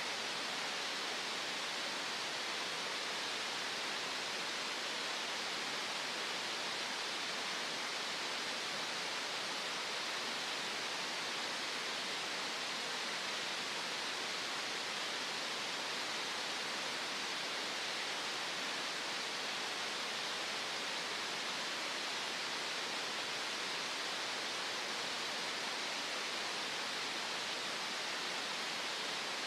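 Green noise: a steady, even hiss with little deep bass and no change in level.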